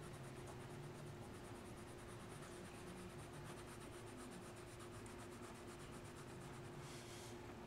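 Faint scratching of a coloured pencil shading on paper, in soft repeated strokes, a little stronger near the end.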